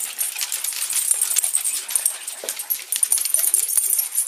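Dogs moving about on a wooden floor: a stream of irregular light clicks and rustling.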